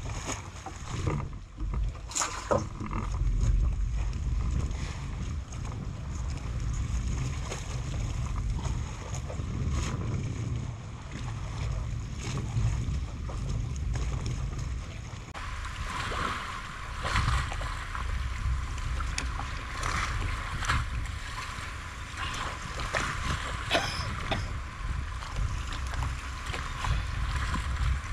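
Wind rumbling on the microphone over the open-air harbour ambience of a moored fishing boat, with scattered small clicks and knocks; about halfway through the higher hiss gets stronger.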